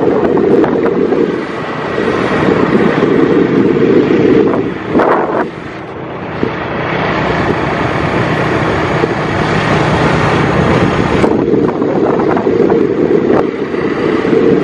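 Wind rushing over the microphone of a moving vehicle, mixed with the vehicle's running noise as it drives along a road. It is steady, eases a little about five seconds in, then builds back up.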